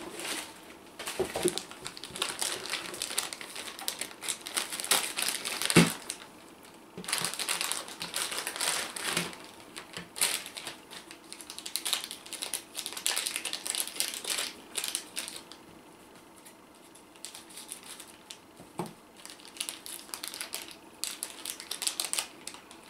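Thin plastic bag crinkling and rustling, mixed with small clicks of plastic parts, as a power cord and a plug adapter are unwrapped and handled. One louder knock about six seconds in; in the last several seconds it thins to a few scattered clicks.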